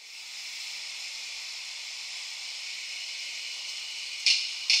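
A steady high hiss fades in. About four seconds in, two sudden loud bursts of the same hiss break in, about half a second apart.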